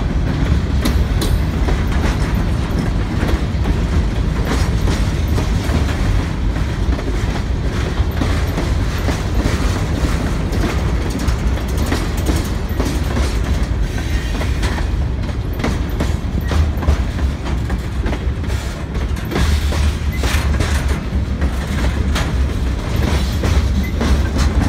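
Freight train cars, mostly covered hoppers, rolling past close by: a steady low rumble of steel wheels on rail, with frequent clicks and clanks throughout.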